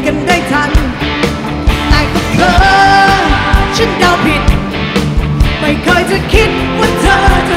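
Female lead singer singing a Thai rock song live into a handheld microphone, backed by a rock band with drums, electric guitar and keyboards, with the drums striking regularly under the vocal line.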